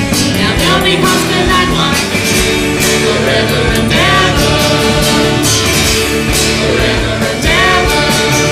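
A rock-style song with sung vocals over a steady drum beat, the line "Now they'll be husband and wife... forever and ever" being sung.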